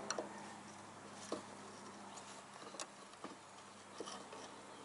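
A few faint, scattered clicks and light scrapes of a small Phillips screwdriver prying at the metal retaining clip on the end fitting of a VW MK4 hood gas strut.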